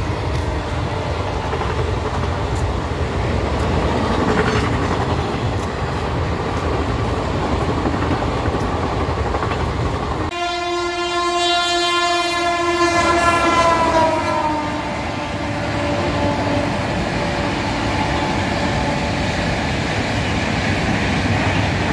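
A train's air horn sounds for about four seconds around the middle, its pitch dropping as it passes. Under it runs a steady rumble of train noise.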